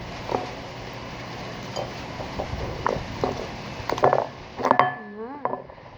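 Light clinks and taps of utensils and containers being handled while mixing slime, scattered and busiest about four seconds in, with a short wavering vocal sound near the end.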